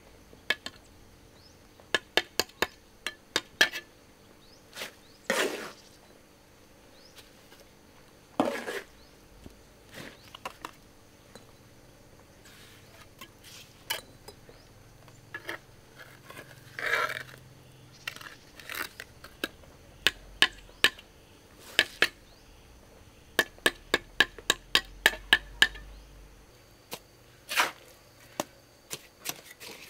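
Hard objects clinking and knocking against each other in irregular runs of sharp strikes, with a few short scrapes in between, as in handwork with tools or hard materials.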